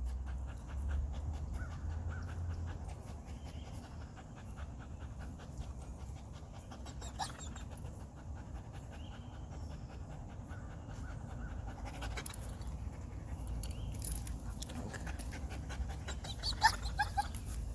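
A German shepherd panting quickly and steadily, with a few sharp clicks near the end.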